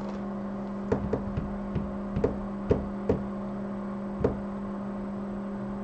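Irregular light clicks and taps of tools and equipment handled on a repair bench as the soldering iron is got ready, about nine in the first four seconds. A steady electrical hum runs underneath.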